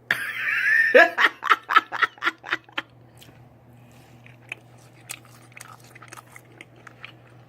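A woman bursts out laughing in a quick run of about seven pulses. Then come quiet clicks of chewing as she eats a barbecue rib.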